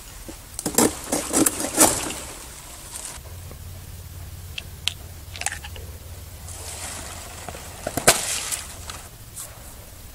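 Knife cutting through palmetto frond stems: a quick run of sharp cracks early on, then scraping and rustling of the stiff fronds, with another sharp crack and a swell of rustling near the end.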